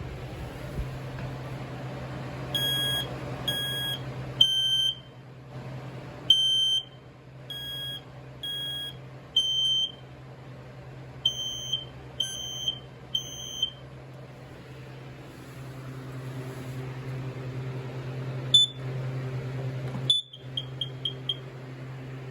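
Smoke alarm piezo horns sounding a series of short, high-pitched beeps, roughly one a second, over a steady low hum. The beeps stop about two-thirds of the way through. Near the end come two sharp clicks and a quick run of four or five short chirps.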